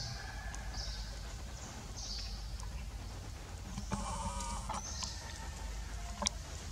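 Outdoor ambience with short, high chirps repeating about once a second. About four seconds in there is a brief pitched animal call lasting under a second, and a sharp click comes near the end.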